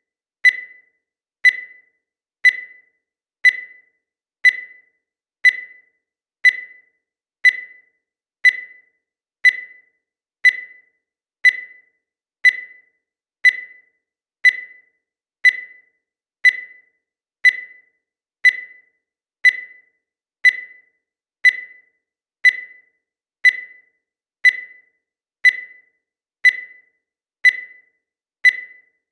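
Digital countdown timer beeping once every second, each beep marking one second of the countdown. Each beep is a short, high tone that fades quickly.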